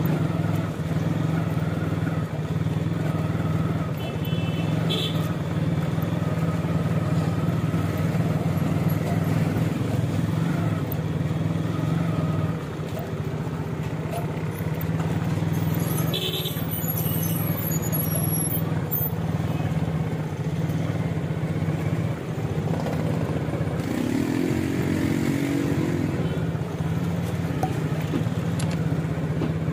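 Street traffic on a town road: a steady low engine drone from cars and motorcycles, with a couple of brief high-pitched tones early and midway and a short pitched sound near the end.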